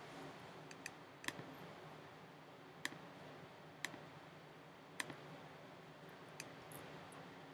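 Faint single clicks at a computer, about six of them spaced a second or more apart.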